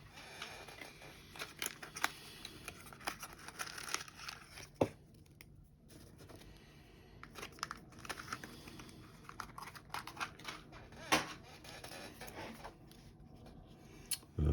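Quiet handling noises of small parts being worked by hand: scattered light clicks and taps over faint crinkly rustling and scraping, with two sharper clicks about five and eleven seconds in.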